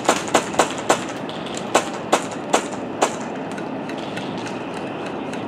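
Airsoft guns firing single shots: about eight sharp cracks, unevenly spaced, over the first three seconds, then only a steady background rush.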